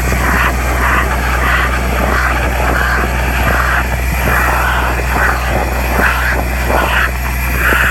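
Compact vacuum excavator running, its suction pipe drawing soil out of a hole: a steady low machine hum with an uneven rushing of air and soil through the pipe that swells and fades.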